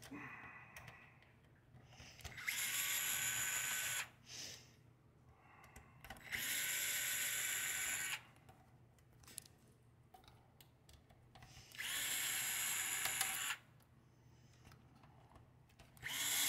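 A cordless power screwdriver whirring in four short runs of about a second and a half each, the last starting just before the end, as it backs out the four screws on top of a car stereo's metal case. Faint clicks of handling come between the runs.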